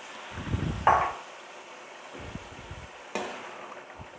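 Tomato puree simmering and sizzling in a pan with boiled red kidney beans just added, a steady low hiss. A utensil knocks sharply against the pan twice, loudest about a second in and again just after three seconds, with a few low dull bumps.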